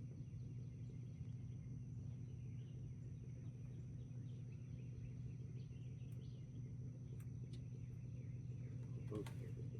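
Quiet outdoor ambience: a steady low hum with faint, scattered bird chirps.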